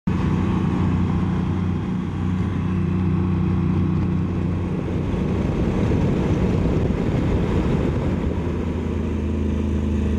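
Motorcycle engine running steadily at cruising speed, with wind and road noise on a helmet-mounted microphone.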